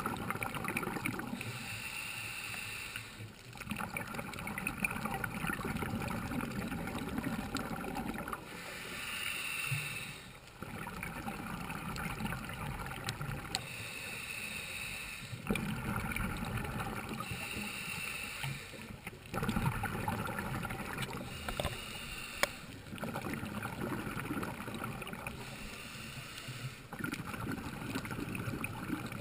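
Scuba diver breathing through a regulator underwater. A hissing inhale and a low rush of exhaled bubbles take turns every few seconds.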